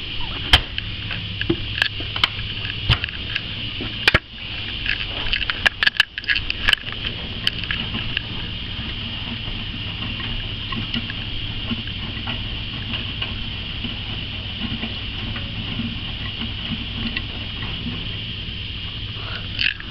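Front-loading washing machine running its main wash, quiet: a steady motor hum and hiss as the laundry tumbles in the drum. Several sharp clicks and knocks come in the first several seconds.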